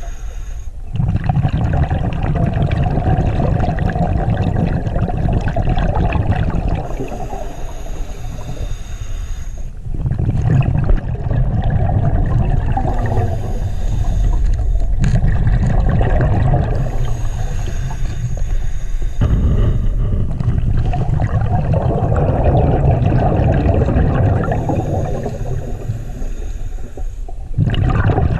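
Scuba diver breathing through a regulator under water. A few seconds of hissing inhale alternate with longer rushes of exhaled bubbles, about four breaths in all.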